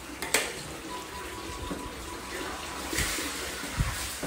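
Diced meat sizzling in a large wok as it is stirred with a metal spatula and ladle, with a sharp metal clink against the wok about a third of a second in and another near three seconds in.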